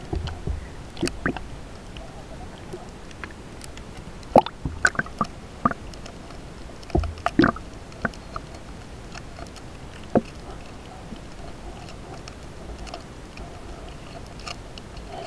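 Muffled underwater sound picked up by an action camera in its waterproof housing: a steady low hiss with scattered sharp clicks and knocks, the loudest in a cluster a little over four seconds in.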